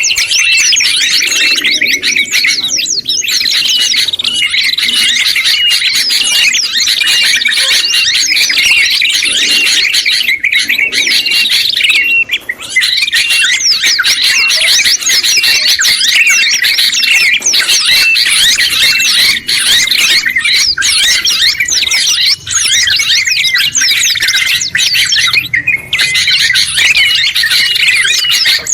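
Dense, loud, continuous chattering and twittering of several songbirds layered together, a mix of bulbul, tailorbird and white-eye calls, with a short high note repeating at an even pace beneath the chatter.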